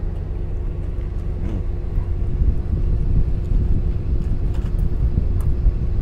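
Steady low rumble of an idling engine with a constant hum, heard from inside a truck cab.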